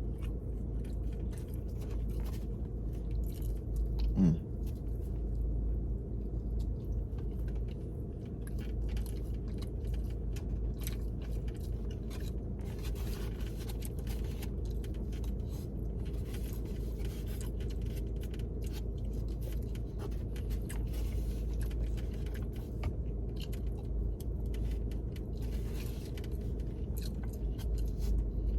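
Close-up chewing and mouth sounds of a person eating a plate of jerk chicken with rice and peas: irregular small wet clicks and crunches, over a steady low hum. A short voiced murmur about four seconds in.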